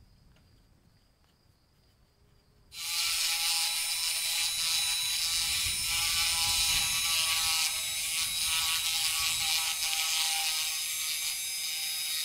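Handheld rotary tool (engraver) with a felt polishing tip switching on about three seconds in and spinning at high speed, a steady high-pitched whine, buffing polishing paste on a metal lighter part.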